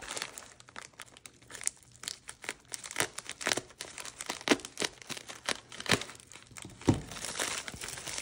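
Paper mailer envelope crinkling and crackling in irregular sharp bursts as it is handled, slit along its edge with a folding knife blade, and opened and rummaged through.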